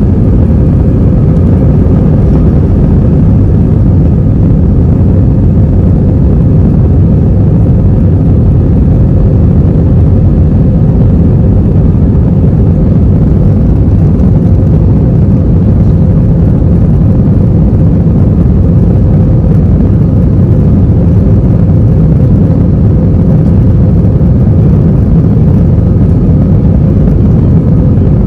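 Airliner cabin noise during the takeoff and climb: a loud, steady, low rumble of jet engines and rushing air, heard from inside the cabin, with a faint steady hum.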